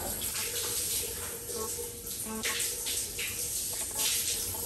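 Shower spray running and splashing over a person's head and body while a body scrub is rinsed off, with uneven surges of louder splashing.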